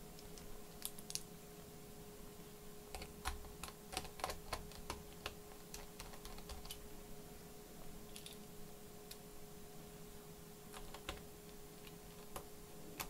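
Faint, irregular small clicks and taps of laptop parts being handled on a repair bench, bunched in two spells, over a steady faint hum.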